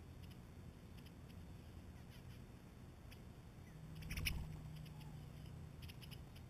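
Eastern bluebirds at a dish of mealworms: small crisp clicks scattered through from their pecking, and one louder flutter of wings about four seconds in as the birds take off.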